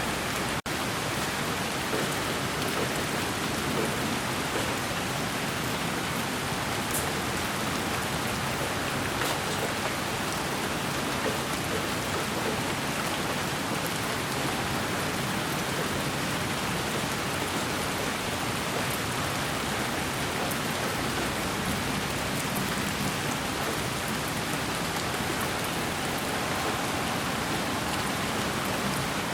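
Steady, even white noise with a rain-like hiss, played as a baby's sleep sound. It drops out for an instant about half a second in.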